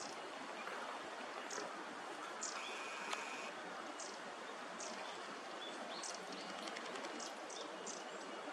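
Steady outdoor background noise with many short, high-pitched bird chirps scattered through it, and one brief whistled note about two and a half seconds in.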